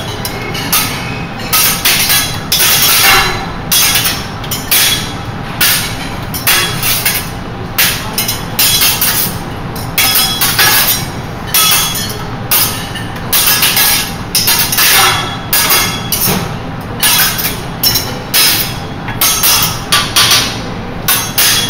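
Teppanyaki chef's steel spatula and carving fork clacking against each other and the steel griddle in a showy utensil-twirling routine: rapid, irregular metallic clanks, several a second in bursts.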